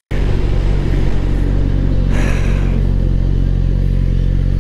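Sport motorcycle engine running at steady revs, heard from the rider's helmet camera. There is a short rush of hiss about two seconds in.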